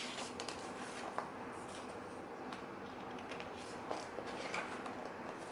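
Faint rustling and small scattered clicks of hands handling a DVD box set: paper booklet and plastic case.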